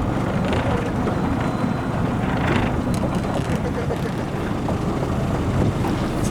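Fishing boat's engine running steadily, a low continuous rumble.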